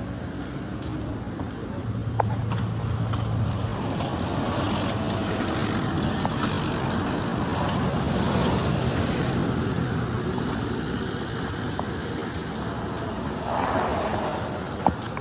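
Road traffic: engines running and vehicles passing, swelling and easing as they go by, with a sharp click about two seconds in and another near the end.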